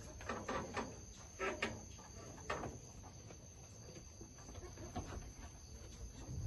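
Boer goat feeding from a metal trough: a run of short crunching, scraping noises from its muzzle in the feed during the first few seconds, then quieter.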